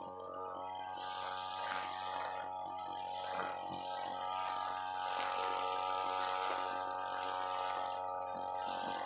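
UMA UM328 two-stroke brush cutter engine running at a steady high speed, its toothed 3.0 mm nylon line cutting tough grass down to the soil. A rough swishing rises and falls over the engine's drone as the line strikes the grass.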